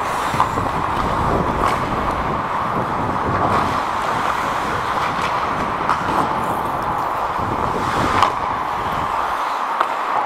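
Ice hockey play heard through a skating referee's helmet microphone: a steady scrape and rush of skates on the ice with a low rumble of movement, broken by sharp clacks of sticks and puck every second or few. The low rumble drops away near the end.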